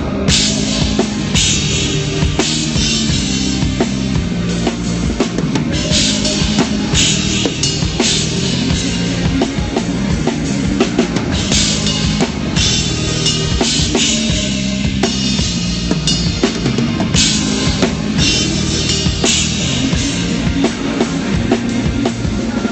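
Rock band music over a venue sound system, the drum kit to the fore: repeated cymbal crashes over a steady bass drum and bass line.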